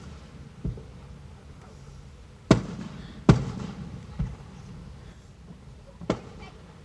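Large aerial fireworks going off: about five sharp bangs at uneven gaps. The two loudest come under a second apart near the middle, and each trails off in a short echoing rumble.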